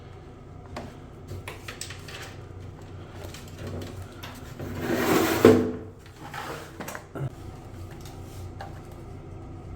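Hard parts being handled, with scattered clicks and knocks. About four and a half seconds in, a longer sliding, scraping sound swells up and ends in a sharp knock about a second later.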